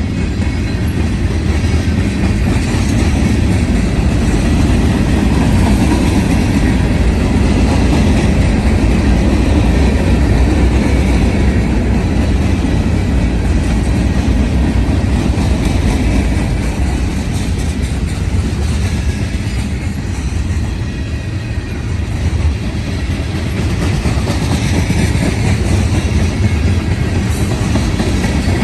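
CSX manifest freight train's cars rolling past, their wheels running on the rails in a steady, loud noise.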